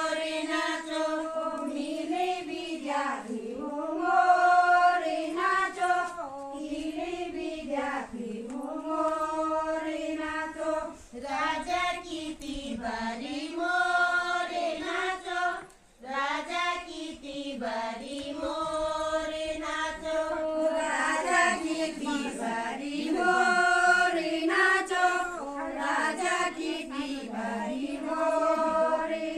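A group of women singing a Garhwali thadya folk song in unison, unaccompanied, in repeated melodic phrases that rise and fall, with a brief pause about sixteen seconds in.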